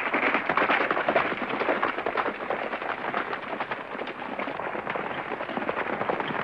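Dense crackling noise: many small pops and clicks packed close together, a little louder in the first couple of seconds and easing off slightly after.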